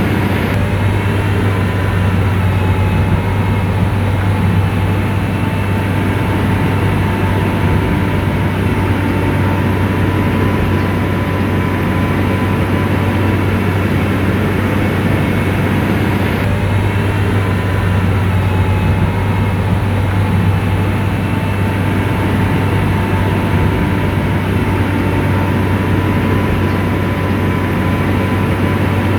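Komatsu bulldozer's diesel engine running steadily at work, a constant low drone with faint whining tones above it.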